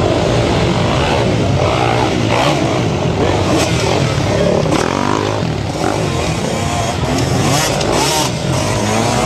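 Kawasaki dirt bike engine revving under load as it is worked over rocks, with harsher bursts of throttle around the middle and near the end. Spectators' voices are mixed in.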